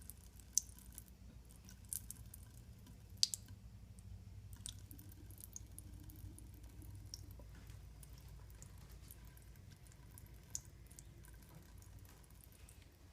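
A cat drinking water, giving faint wet clicks and drips at irregular intervals, a few of them sharper, over a low steady hum.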